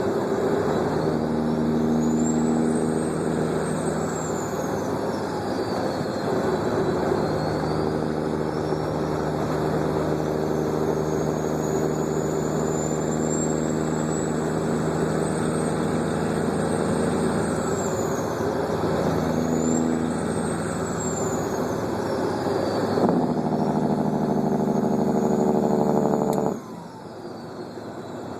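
Caterpillar 3406E 550 hp diesel engine running through straight pipes, its turbocharger whistle rising and falling in long sweeps several times over the engine note. The engine's tone changes about three-quarters of the way through, then the level drops suddenly to a quieter idle near the end.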